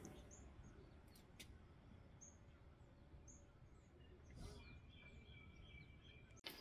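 Faint early-morning outdoor ambience with a few short, high chirps of small birds scattered through it.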